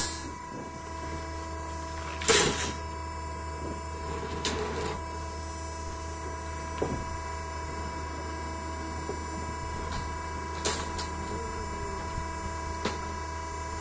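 Electric rebar cutting machine running with a steady motor hum, with a few sharp metallic clanks of steel bars, the loudest about two seconds in.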